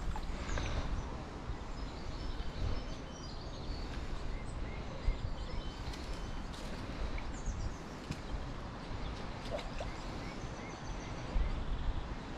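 Small birds chirping and twittering over a steady low rumble, with a few sharp clicks; the loudest comes about five seconds in.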